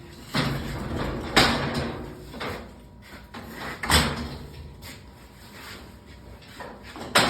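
Folding welding table being rolled on its wheels, a steady rolling rumble with a few loud clunks, about three across the few seconds.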